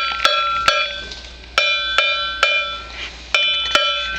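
A tuned percussion instrument, of the Orff classroom kind, struck with a mallet in a repeating pattern of three notes, each note ringing on briefly.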